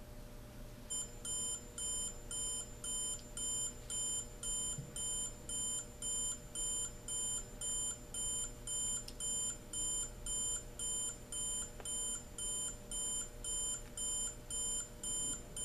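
Ken-Tech T-1949 digital alarm clock's alarm sounding: a steady series of high-pitched electronic beeps, about two a second, starting about a second in.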